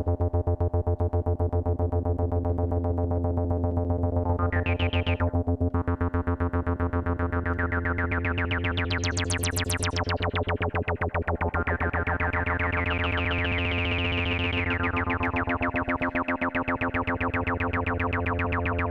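Roland 303-style bass synthesizer playing a fast run of repeated 16th notes on one pitch while its filter cutoff is swept: it opens briefly about four seconds in, sweeps up to a bright, squelchy peak around nine to ten seconds, closes, then opens again before settling partly open.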